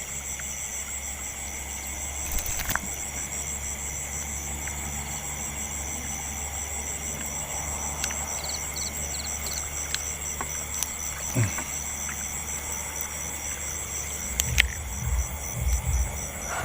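Insects, crickets among them, trilling steadily in a high pulsing chorus over a low steady hum. A few low thumps come near the end.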